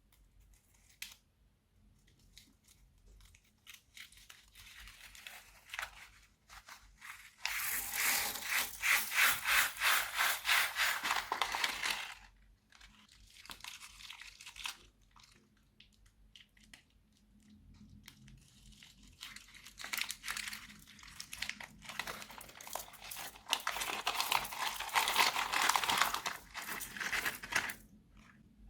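Crunchy slime being squeezed and worked, giving dense crackling and crinkling in two long stretches, with scattered softer clicks between them.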